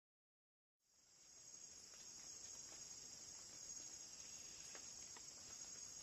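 Faint, steady high-pitched insect chorus of forest ambience, starting about a second in, with a few faint short sounds over it.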